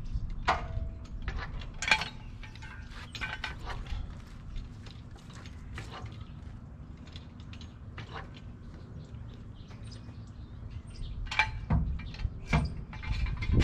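Scattered metal clicks and clinks as a floor jack is worked and a jack stand is pulled out and set down, heaviest near the end.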